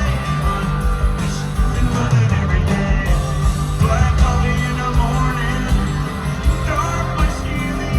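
Live country-rock band playing loudly, with a sung melody over it.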